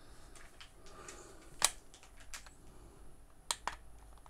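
Sharp plastic clicks of the buttons on a toy RC car's handheld remote control being pressed, a handful of them spread irregularly, the loudest about one and a half seconds in.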